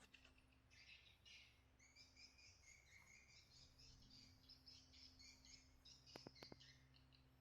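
Faint, busy chirping and twittering of small birds, with three quick sharp clicks about six seconds in.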